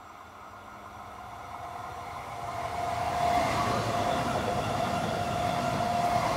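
SBB regional electric multiple unit approaching and passing close at speed: wheel and running noise grows louder over the first three seconds and then stays loud, with a steady whine through it.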